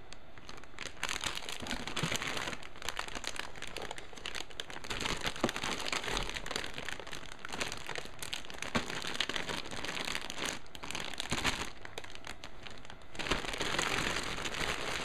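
Clear plastic bags around model-kit parts runners crinkling continuously as they are handled and shuffled through.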